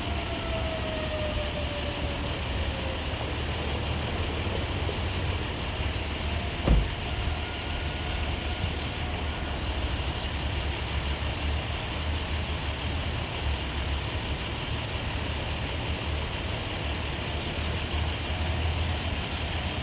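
Steady low rumble of heavy truck engines running nearby, almost drowning out a distant outdoor warning siren whose faint tone slides down in pitch over the first few seconds. A single sharp thump about seven seconds in.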